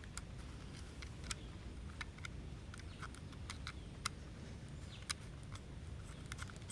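Faint, irregular small clicks as fingers turn the threaded battery cap on a Nikon Photomic FTN metering finder, fitting it over the two PX625 cells, over a low steady rumble.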